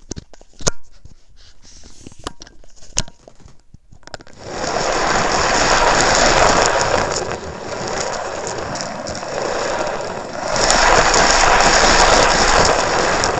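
Shimano Stradic 5000 FK spinning reel cranked by hand with a clip-on microphone held against it: after a few clicks, a loud, rough, gear-like running noise starts about four seconds in, eases a little midway, then grows loud again. The roughness shows the reel needs rebuilding, usually a sign of bad bearings, sometimes of a broken gear.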